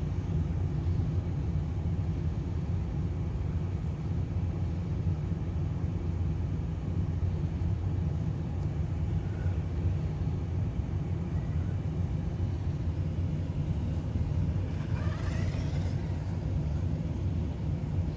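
A steady low rumble throughout. About fifteen seconds in comes a brief whine that rises and falls, from the Hyper Go H16GT RC truck's electric motor speeding up.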